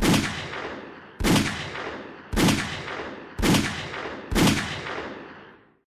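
Five 9mm pistol shots from a short-barrelled pocket pistol firing Speer Gold Dot 147-grain jacketed hollow points, at about one a second. Each shot is a sharp report followed by an echo that dies away over about a second. The heavy bullets leave the 3-inch barrel at roughly 925–947 feet per second, below the speed of sound.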